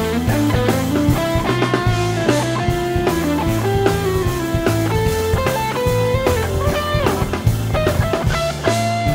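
Live rock band in an instrumental passage: a lead electric guitar plays a melodic line with bent, sliding notes over bass guitar and a drum kit.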